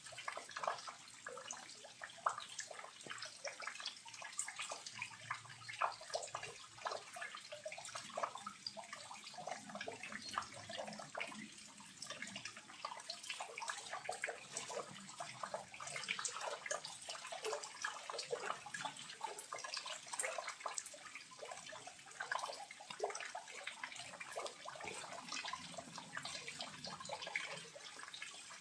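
Small waterfall running at low flow, babbling softly as a continuous patter of small splashes and drips.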